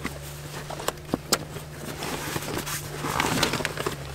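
A few sharp clicks as the clips holding a roll-bar gear bag are released, then the rustle of the bag's PVC-coated fabric as it is pulled off the bar.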